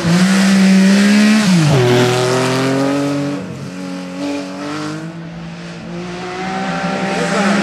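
Porsche race car's engine revving hard, held at high revs, then dropping briefly about one and a half seconds in before pulling up again through the revs. It fades in the middle and grows louder again near the end.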